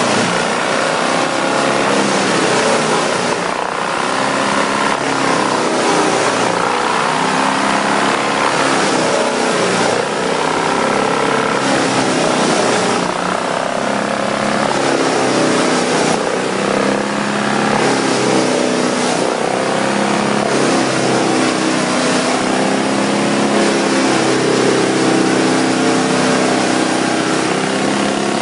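Wood chipper running hard, its engine note rising and falling, with several short bursts of harsher noise.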